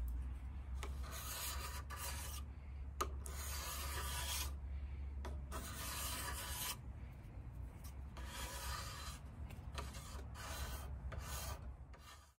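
A hand scraper shaving wood from an Osage orange bow limb in repeated straight strokes, about one a second, taking weight off the limb before tillering. The scraping cuts off abruptly near the end.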